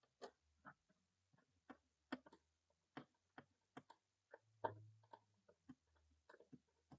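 Faint, irregular little ticks and clicks of a small Phillips screwdriver turning the top screw back into the alarm panel, the loudest click about two-thirds of the way through.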